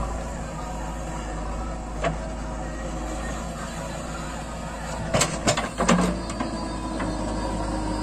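JCB 3DX backhoe loader's diesel engine running steadily as the backhoe swings and digs. A single knock about two seconds in, and a quick run of sharp knocks around five to six seconds in.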